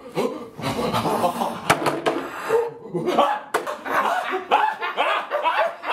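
Several young adults making wordless animal-like vocal noises, yelling, grunting and barking-like cries overlapping one another. There is one sharp knock a little under two seconds in.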